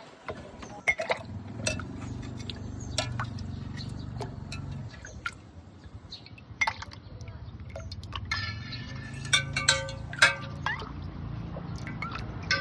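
Ice and glass or metal containers clinking repeatedly while a sweet iced drink is prepared and poured, over a steady low hum.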